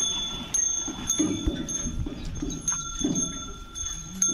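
Bells on a pair of bullocks ringing steadily as the animals start pulling a wooden-wheeled bullock cart, with irregular low knocks and rumble from the moving cart.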